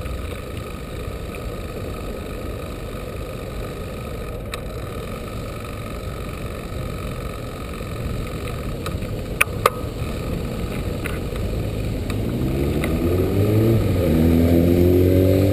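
Steady wind and road rush on an action camera's microphone while riding a bicycle through city traffic, with two sharp clicks about nine and a half seconds in. In the last few seconds a motorcycle engine accelerates close by, rising in pitch and growing louder until it is the loudest sound.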